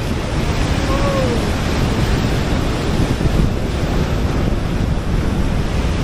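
Sea surf washing against a rocky shore, with wind buffeting the microphone in a steady rush.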